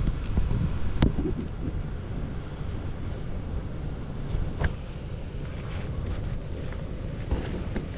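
A steady low rumble with a few light knocks and clicks from handling inside an air handler's sheet-metal cabinet.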